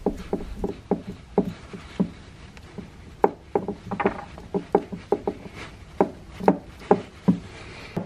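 Gloved fingers handling a GM 3.5L oil filter adapter while pressing a new gasket onto its face: irregular light taps and clicks, a few a second.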